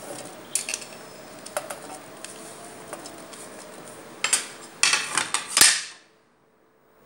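Pieces of raw mango clinking and knocking against a stainless-steel mixer-grinder jar: a few light knocks, then a louder run of clatter from about four seconds in, ending in one sharp knock.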